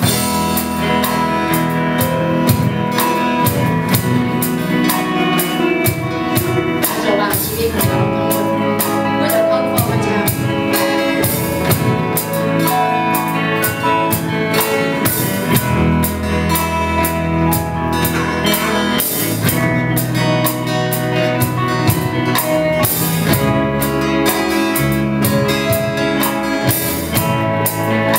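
Live band playing an instrumental song intro: strummed acoustic guitar and electric guitar over a drum kit keeping a steady beat.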